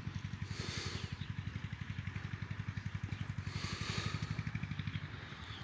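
A small engine running steadily, a low, even throb. A brief rush of hiss comes twice over it.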